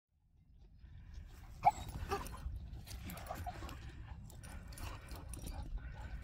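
Wind rumbling on the microphone, with a dog making a few short, high sounds; the sharpest is about two seconds in.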